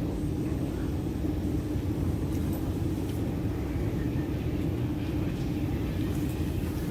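Shanghai Metro 09A02-type electric multiple unit running at speed between stations, heard from inside the car: a steady, even rumble with a low hum.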